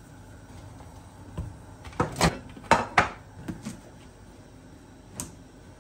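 Kitchen handling sounds: a quick cluster of sharp knocks and crinkles about two to three and a half seconds in, as hands work a plastic bag and cloth wrapping over a plastic basket on the worktop. One more click comes near the end.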